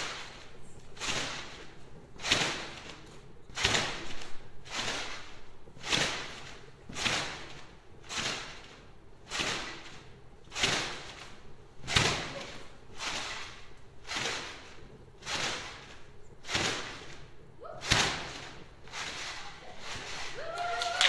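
A person bouncing high on a trampoline: the mat and springs give a sharp swishing thump with each landing, in a steady rhythm of about one bounce every second and a bit.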